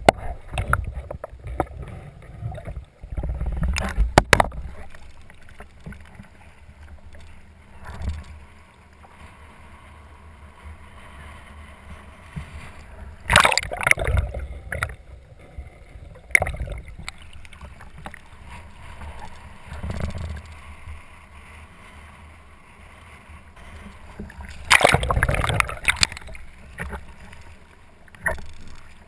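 Water churning and gurgling around a capsized kayak, heard muffled through a deck-mounted camera that is underwater. Louder splashing comes in bursts about 13 seconds in and again around 25 seconds, as the boat is rolled back upright.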